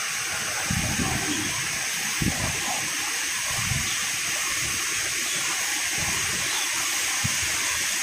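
Steady rushing hiss of a waterfall and river in the valley below, with a few soft thuds of footsteps on concrete steps.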